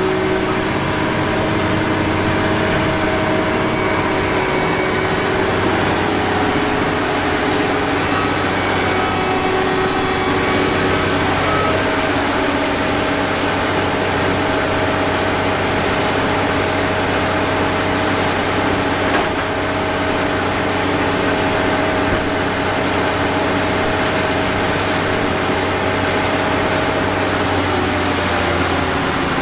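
Corn harvester's engine and threshing machinery running steadily under load, a constant loud drone with a level engine note.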